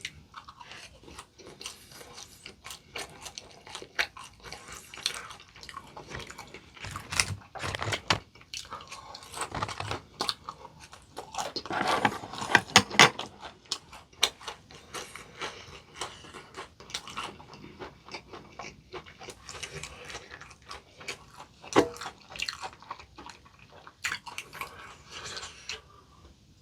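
Close-miked eating: crisp bites and chewing of crunchy potato-coated fried chicken, an irregular run of crackles and crunches with a louder cluster about halfway through.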